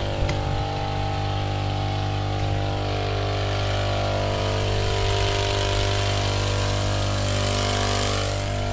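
Small petrol engine of a motorized knapsack sprayer running steadily at a constant speed, with only slight wavering in pitch.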